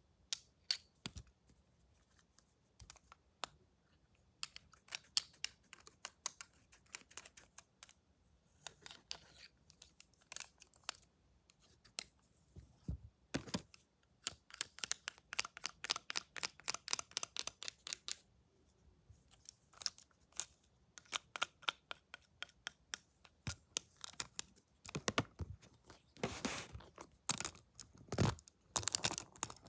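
Crisp, close-up clicking and snipping from barber roleplay tools handled right at the microphone, in irregular runs of quick clicks with short pauses between.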